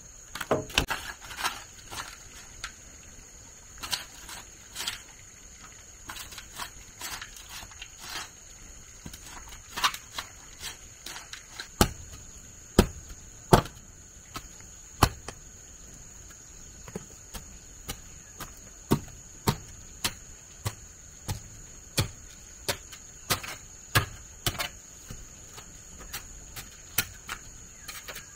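Repeated strikes of hand-tool work, sharp knocks and a few heavier thuds. They come scattered at first, then settle into a steady beat of about one to two strikes a second. A steady high-pitched insect drone runs underneath.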